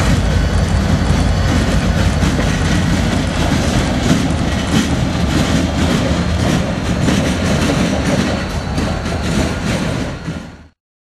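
Two CSX EMD diesel locomotives passing close by, their engines running as the wheels click over the rail joints. The sound cuts off suddenly near the end.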